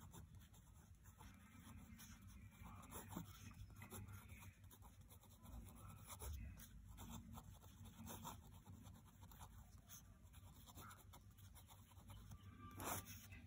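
Faint scratching of a pen on paper as words are written by hand in short, irregular strokes.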